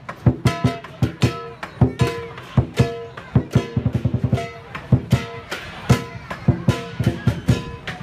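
Dragon dance percussion: fast, uneven drum strikes with a quick roll about three seconds in, and metal tones ringing on after many of the hits.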